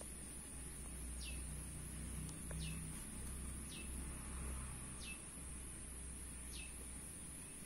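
A bird calling five times, each call a short, quick downward whistle, about one and a half seconds apart, over a steady high-pitched hiss.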